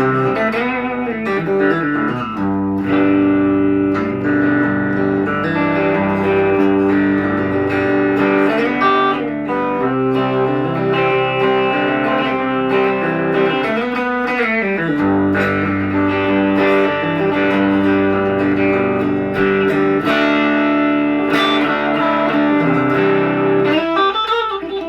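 Guild Aristocrat HH electric guitar on its middle pickup setting, both humbuckers, played through an old Line 6 amp with a little gain. Chords are played and left ringing, changing every second or two.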